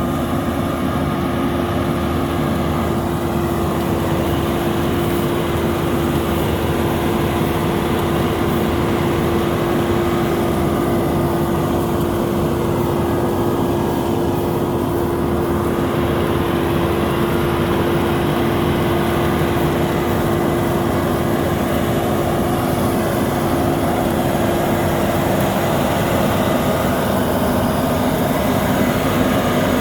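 Rice combine harvester running steadily: a continuous machine drone with a steady hum that fades about three-quarters of the way through.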